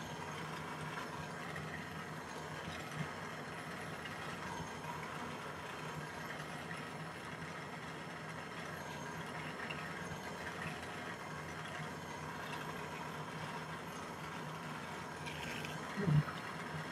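Jeweller's gas torch flame burning steadily while heating a silver piece for pick soldering, with a small click a few seconds in and a short thump near the end.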